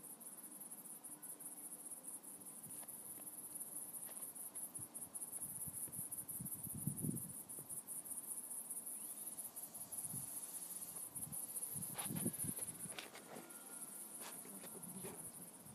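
Crickets chirping in a continuous high-pitched trill, with a few short low thumps about seven and twelve seconds in.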